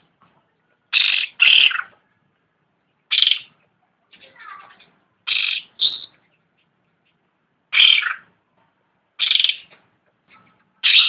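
Cucak rante bird calling: about eight short, loud calls one to two seconds apart, some in quick pairs, with a softer run of chatter about four seconds in.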